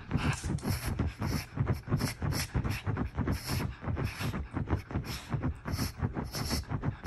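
Quick, noisy huffing breaths, about three a second, without a break.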